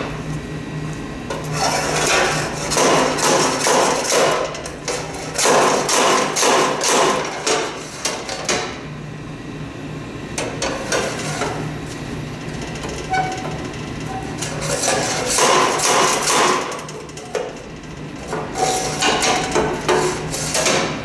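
Hammer blows on the parts of an old snowblower during teardown, coming in several bursts of rapid strikes with short pauses between. The stuck part is not coming loose.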